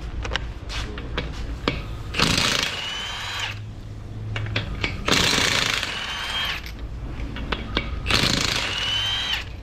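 Milwaukee FUEL cordless impact wrench with a 21 mm socket hammering the lug nuts loose, in three bursts of about a second and a half each, its motor whine rising at the start of each. Light clicks of the socket going onto the nuts come between the bursts.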